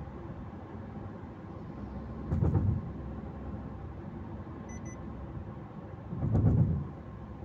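Steady road and engine noise heard inside a moving car's cabin, with two brief louder low rumbles, about two and a half and six and a half seconds in.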